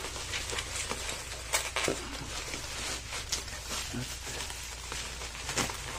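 Plastic bubble wrap crinkling and rustling as hands pull it apart, with scattered sharp crackles.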